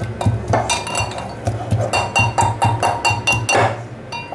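Garlic cloves being pounded in olive oil in a metal mortar (mehraz) with its pestle: quick ringing metallic strikes, about three a second.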